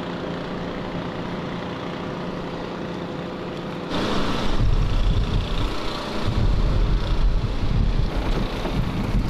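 An engine running steadily, growing louder about four seconds in as a heavy low rumble joins it.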